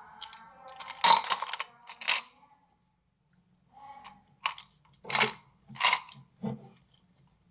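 Makeup brushes knocking and clattering as they are handled and put into a cup holder: a string of sharp clicks and rattles, loudest about a second in, with more knocks after a short pause.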